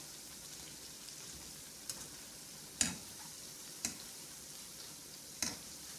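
Besan pakoras shallow-frying in hot oil in a metal pan, a steady soft sizzle, with a few sharp clicks of the spatula against the pan as the pakoras are turned.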